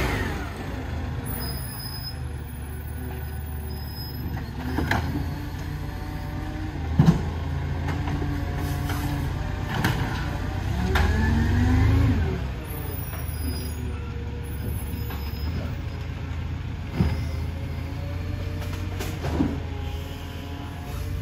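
Side-loader garbage truck's diesel engine running as the truck moves slowly along the street. It revs up, pitch rising, about ten seconds in, with a few short sharp knocks along the way.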